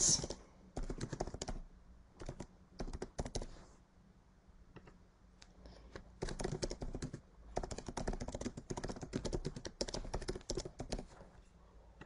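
Typing on a computer keyboard: rapid keystrokes in two spells, with a pause of about two seconds in between.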